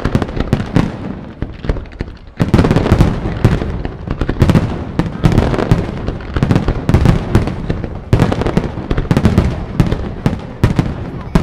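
Fireworks display, a rapid, almost unbroken barrage of loud bangs and crackling bursts. It thins briefly about two seconds in, then packs densely again.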